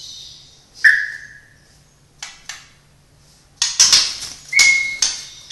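White-rumped shama (murai batu) singing in separate phrases: one loud whistled note about a second in, two short sharp ticks, then a fast chattering run with a held, steady whistle near the end.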